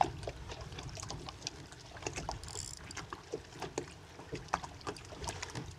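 Water lapping and small splashes around a kayak, with scattered light ticks and a low steady rumble beneath. There is a sharp click at the very start and a brief hiss of spray about halfway through.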